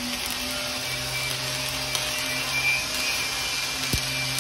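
Stick welding arc burning on a 1/8-inch 7018 rod at about 105 amps: a steady frying hiss. A low steady hum joins about a second in, and there is one sharp tick near the end.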